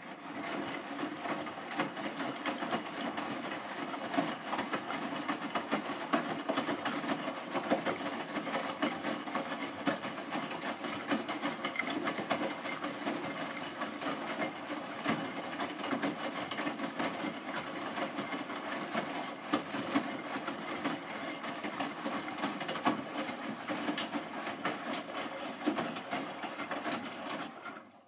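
Hotpoint NSWM 843C front-loading washing machine in its wash phase, the inverter motor turning the fully loaded drum through water: steady churning and sloshing with many small rattling clicks.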